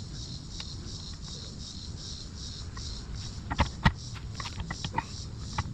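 Two sharp metal knocks about three and a half seconds in, then lighter clicks and taps, from an outboard's lower unit and tools being handled during refitting. Under them runs a steady low rumble and a high pulsing chirr repeating about three times a second.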